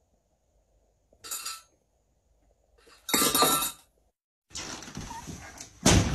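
Glass clinking briefly about a second in, then a loud crash of glass breaking and shattering about three seconds in. A heavy thump follows near the end.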